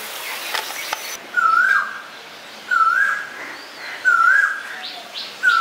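A bird whistling the same short call four times, about a second and a half apart; each call rises, wavers and drops away at the end. For about the first second, before the calls, a wok of watery spice gravy bubbles and sizzles.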